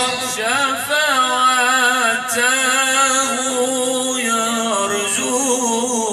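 Unaccompanied male voices singing Moroccan Sufi devotional song (sama'): a lead voice in a melismatic mawal with wavering, ornamented turns, over a steady held note sung beneath it, heard through microphones.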